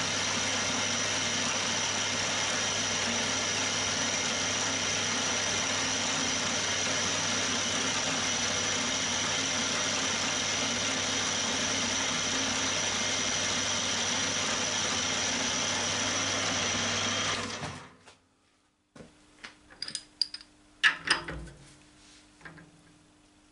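Milling machine spindle running steadily as a 1 mm drill bores a hole through a small part held in the vise. The running stops near the end, followed by a few light clicks and knocks.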